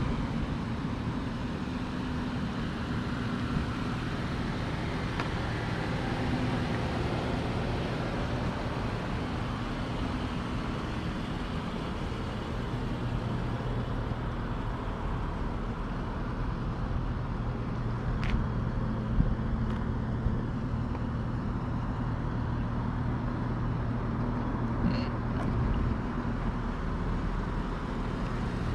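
Dodge Charger GT's 3.6-litre V6 running at a steady hum while driving, with tyre and road noise. A few brief clicks come about eighteen and twenty-five seconds in.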